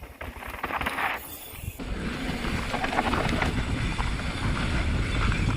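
Mountain bike riding down a loose, dry dirt trail: tyres rolling and rattling over the ground while wind buffets the microphone, getting louder about two seconds in.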